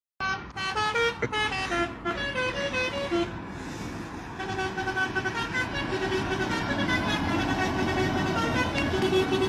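Mining dump truck's new musical horn playing a quick tune of stepped notes, fast falling runs at first and then a steadier repeating phrase, over a low rumble.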